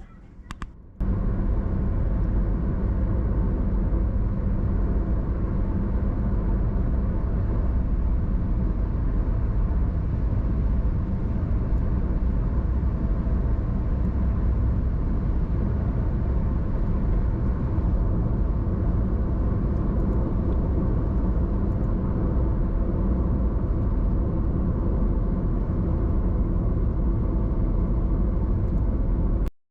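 A car driving at a steady pace: continuous engine and road noise. It starts abruptly about a second in and has a brief break just before the end.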